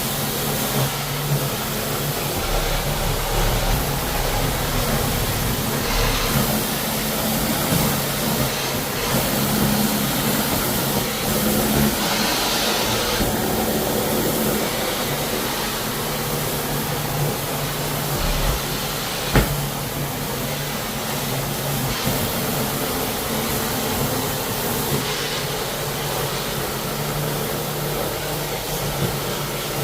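A motor running steadily with a continuous hiss and a low hum, and one sharp click about two-thirds of the way through.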